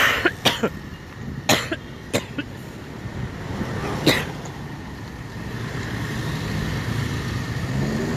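Road traffic: car and motorcycle engines passing, with a low engine hum swelling in the second half. Five sharp knocks come in the first four seconds.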